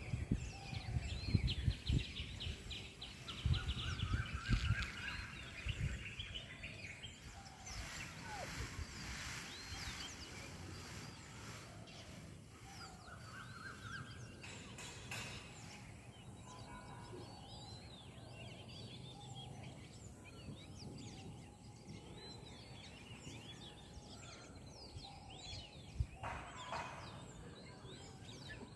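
Small birds chirping and calling in the background, with a few quick trilled runs of notes in the first fifteen seconds. Low rumbling on the microphone for the first five seconds or so.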